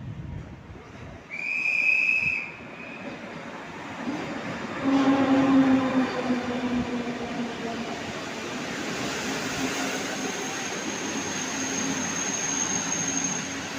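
Train running through a station platform: a short, high whistle about two seconds in, then the rolling noise of the train with a steady low hum that sinks slightly in pitch and a faint high wheel squeal near the end.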